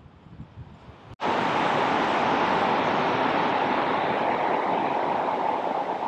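Steady rushing of a small desert waterfall, starting abruptly about a second in.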